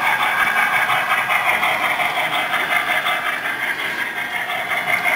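HO-scale model train running into a staging track, a steady engine-like running sound with little bass, easing off slightly near the end.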